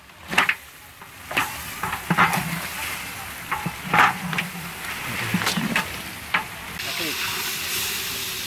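A long wooden stick stirs pieces of duck in a large aluminium pot of curry over a wood fire, scraping and knocking against the pot while the meat sizzles. About seven seconds in, a louder steady hiss starts as water is poured into the hot pot.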